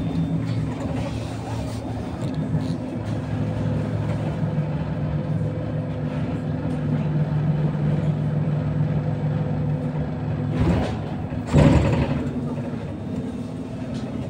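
Inside an electric bus on the move: a steady low hum from the drive with road noise under it. About eleven seconds in come two short, loud bursts of noise, the second the louder.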